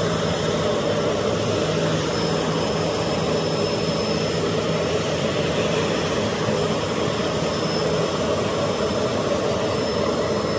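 Parked business jet's turbine running steadily, a constant rushing noise with a thin high whine over it.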